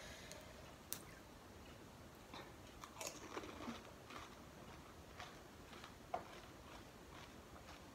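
Crisp panipuri (golgappa) shells crunching and cracking in the mouth, with wet chewing. Faint, with a sharp snap about a second in, a cluster of crunches around three seconds and another snap near six seconds.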